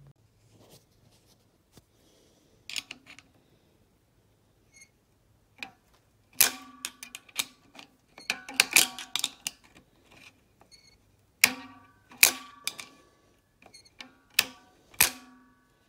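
Webster oscillating magneto and igniter being tripped by hand to test the spark: the spring-loaded trip snaps back in repeated sharp metallic clicks, each ringing briefly, at irregular intervals, coming faster and louder from about six seconds in.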